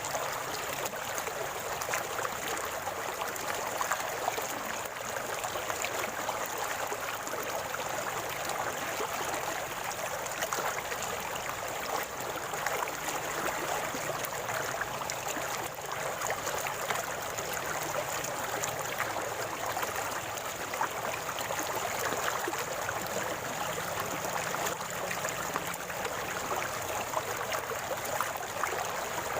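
Stream water flowing and gurgling over stones, a steady even babble.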